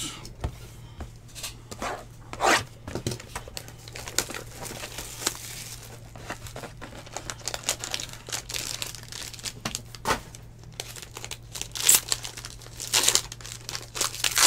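Foil wrapper of a 2019 Tier One baseball card pack being handled and torn open: irregular crinkling and crackling with a few louder rips, the loudest near the end.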